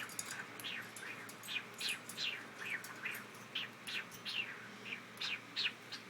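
Cockatiel chirping: a quick, uneven series of short calls, each sliding down in pitch, about two or three a second.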